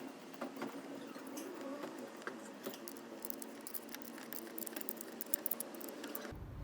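Scattered light clicks and taps from hand work with small parts, coming thicker as a run of quick small ticks in the second half.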